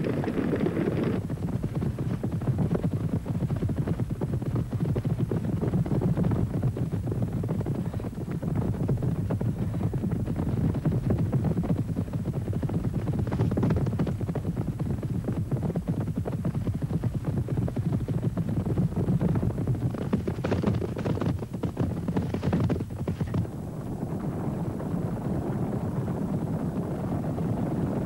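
Hooves of a running wildebeest herd beating on dry ground: a dense, steady rumble of many hoofbeats.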